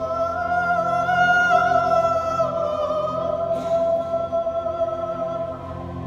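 Operatic soprano holding one long high note over sustained orchestral chords, the note dipping slightly in pitch midway and ending just before the sixth second.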